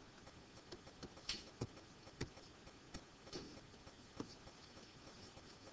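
Faint, scattered clicks and light taps from annotating on a computer, about eight separate ticks over low room hiss.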